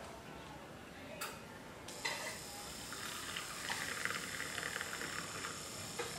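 Handheld battery milk frother whirring in a glass of milk, frothing it, starting about two seconds in after a single click.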